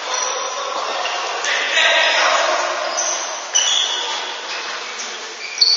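Indoor handball play in a large gym: sneakers squeaking on the court, the ball bouncing with two sharp thuds, about three and a half and five and a half seconds in, and players calling out.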